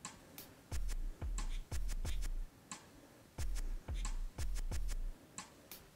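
A run of light, sharp clicks at uneven spacing, a few a second, with a low hum that switches on and off in blocks between them.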